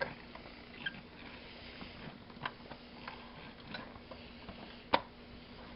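Scattered light clicks and taps of small metal lamp parts and a hand tool being handled on a workbench, with one sharper tap about five seconds in.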